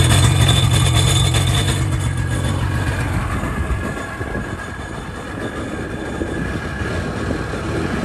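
Sea-Doo GSX jet ski's two-stroke engine running out of the water on its trailer, on its first start in months after a new starter solenoid, spark plugs and battery. It is strongest at first, eases off in the middle, then picks up again near the end.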